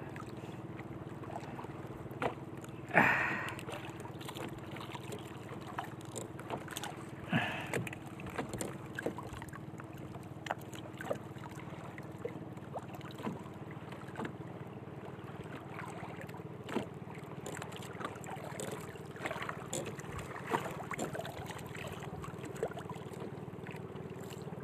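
Small clicks and knocks of a fishing handline, hook and catch being handled on an outrigger boat, over a steady low hum; a brief louder rustle about three seconds in.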